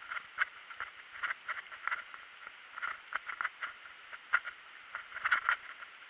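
Mountain bike rolling over a bumpy dirt and gravel track, with irregular clicks and clattering rattles from the bike as it jolts over the rough surface, over a faint steady hiss.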